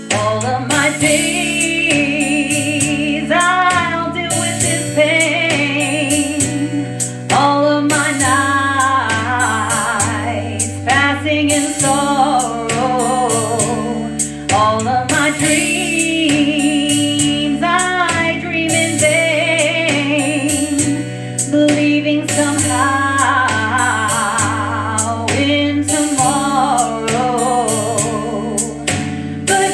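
Music: a woman singing a slow song over an instrumental accompaniment with sustained bass notes.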